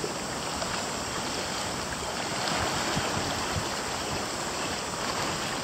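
Small sea waves breaking and washing over shoreline rocks: a steady wash of surf and splashing water.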